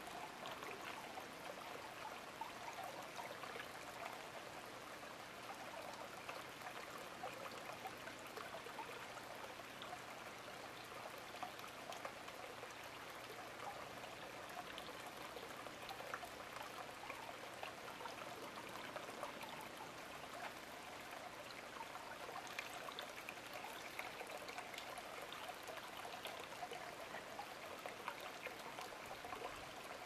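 Faint, steady trickle of running water.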